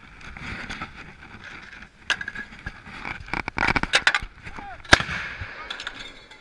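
Metal clanks and knocks from the breech of an LG1 105 mm howitzer as the crew works the gun, with crew voices. The clanks come in a quick run in the middle, and a single sharp clank about five seconds in is the loudest.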